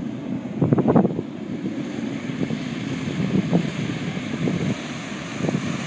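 Wind buffeting the microphone over the run of a wakeboard towboat coming in close, with gusts swelling about a second in and again later.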